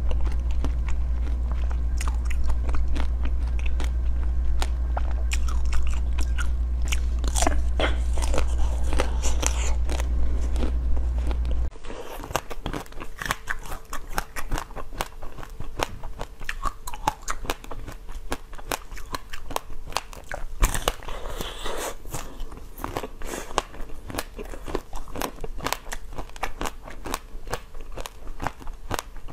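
Close-miked eating: crisp bites and crunchy chewing of a blue-coated sweet over a steady low hum, which cuts off about twelve seconds in. After that come crunchy bites and chewing of a pink-glazed ring doughnut, a dense run of small crackles.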